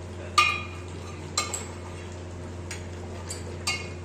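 Metal ladle knocking and clinking against a large metal cooking pot while a thick curry is stirred: about five short ringing knocks, the loudest about half a second in. A steady low hum runs underneath.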